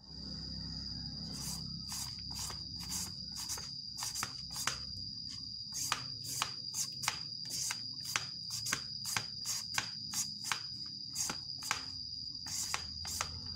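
Quick repeated scraping strokes of a blade shredding a peeled young papaya into thin strips, about two to three strokes a second, starting about a second and a half in. A steady high-pitched insect trill runs underneath.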